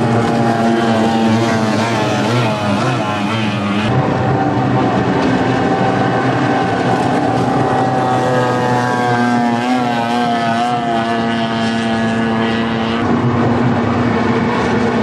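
Outboard engines of small racing boats running at speed as the boats pass, several engine tones at once over a wash of noise. Their pitch wavers and slides, with abrupt changes about four seconds in and again near the end.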